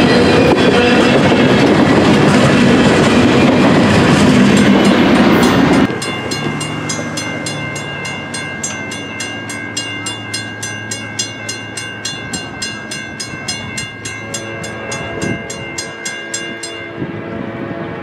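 A freight train of tank cars and boxcars passing close by, a loud steady rumble of wheels on rail, cut off sharply about six seconds in. Then a grade-crossing bell rings about three strikes a second and stops near the end, while a distant locomotive horn sounds a steady chord from about fourteen seconds in.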